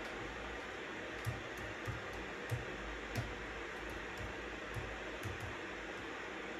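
Steady white noise with scattered keystrokes on a computer keyboard: about a dozen irregular taps, the loudest in the first half.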